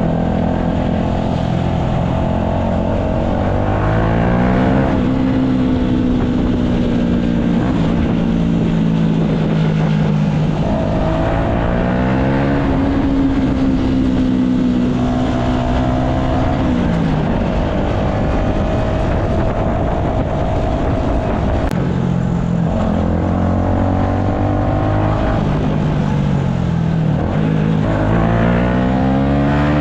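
Yamaha MT-125 single-cylinder four-stroke engine under way. Its pitch climbs under acceleration, holds steady for several seconds at cruising revs, then drops back, again and again. The last rise is near the end.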